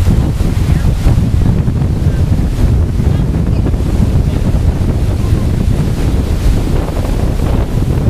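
Strong gusty wind blasting the microphone: a loud, continuous low rumble.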